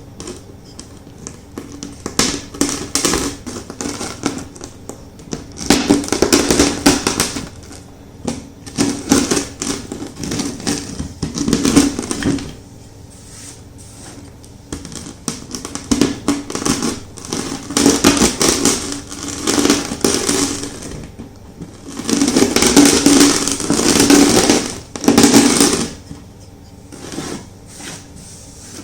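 Chunks of gym chalk crunching and crackling as a rolling pin is rolled over them, in repeated passes of a few seconds with short quieter pauses between.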